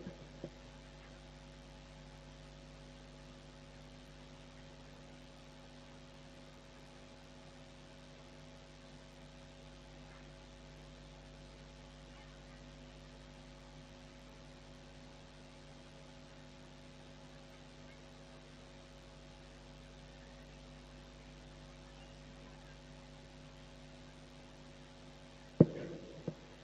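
Steady electrical mains hum from the sound system. Near the end comes one loud knock, then a few smaller clicks, as the handheld microphone is picked up and handled.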